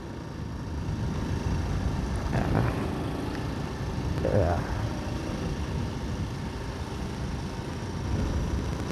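Honda Grand Astrea motorcycle's small single-cylinder four-stroke engine running steadily while being ridden, heard from the rider's position.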